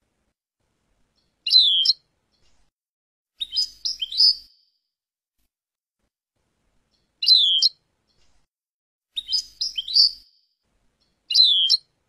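European goldfinch calling in five short bursts of high chirps, a brief falling pair of notes alternating with a longer twittering run of several notes, with silent gaps between.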